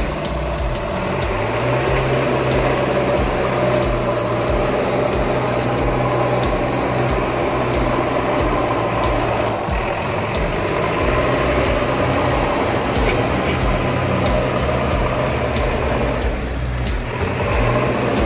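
Diesel engine of a farm tractor with a front-end loader running steadily while it drives and works the loader on gravel. Its speed rises about a second in and eases off near the middle.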